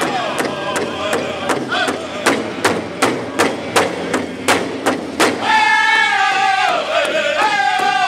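Powwow drum group singing: several men strike a large shared hand drum in a steady beat of about three strokes a second while singing together, with women's voices above. About five seconds in, the beats recede and a high sung line is held and falls in pitch.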